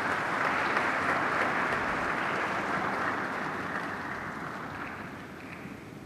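Audience applauding steadily, dying away toward the end.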